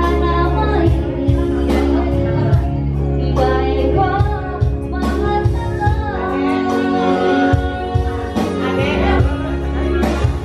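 Background music: a song with singing over a steady bass line.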